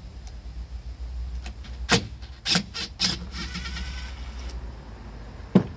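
Sharp metallic clicks and knocks of hand tools and parts being handled during a chainsaw teardown: a quick cluster of clicks about two to three seconds in, followed by faint ringing. A single louder knock comes near the end.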